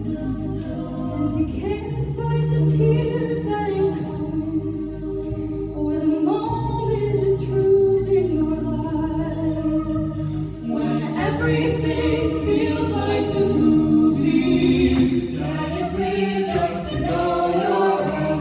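A cappella vocal ensemble singing in close harmony, voices alone with no instruments, the sound growing fuller and brighter about halfway through.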